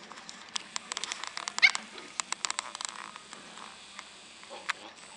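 Samoyed puppy giving a short, high yip about a second and a half in, amid a quick run of small clicks and taps.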